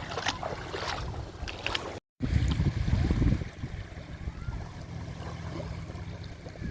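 Sea waves washing onto a beach, with a steady low rumble of wind on the microphone. The sound cuts out briefly about two seconds in, then a louder low rush of surf follows for about a second.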